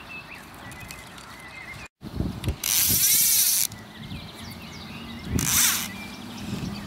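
A fly reel's click-and-pawl ratchet buzzing as line is pulled off it: a long burst about a third of the way in, whose pitch sweeps as the spool changes speed, and a shorter burst later. Birds chirp faintly in the background.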